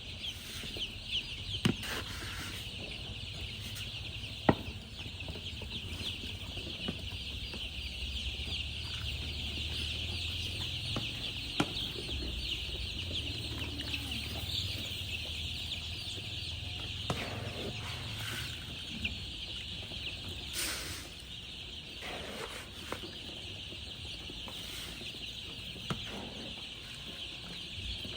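A crowd of baby chicks peeping continuously, many high calls overlapping at once, with a few sharp clicks scattered through and a low steady hum underneath.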